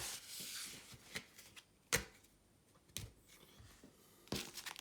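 Pokémon trading cards being handled: a brief sliding rustle, then a few sharp clicks and taps a second or so apart, with a quick run of clicks near the end.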